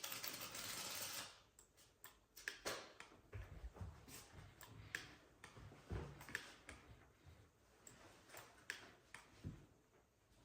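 Faint, scattered clicks of a computer mouse and keyboard, after a short rush of noise in the first second or so.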